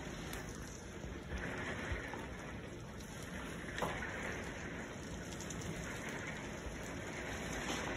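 Steady rain falling in a thunderstorm, an even hiss, with two brief taps about two and four seconds in.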